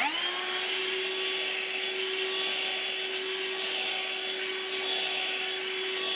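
Dirt Devil AccuCharge cordless handheld vacuum (BD10045RED) switched on: its motor spins up within a fraction of a second to a steady whine over rushing air, and it runs steadily as the nozzle is passed over carpet.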